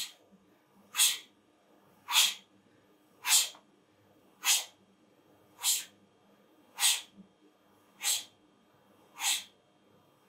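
Short, sharp hissing breaths out, nine of them, one about every second, in time with the repetitions of a workout exercise.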